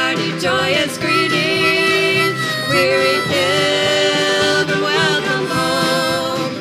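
Bluegrass gospel instrumental break: a harmonica plays the lead melody in long, bending notes over a band of banjo, guitar, bass and drums.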